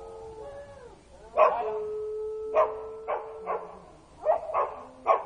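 A dog barking repeatedly, about seven sharp barks in quick, uneven succession, over a long steady tone in the background.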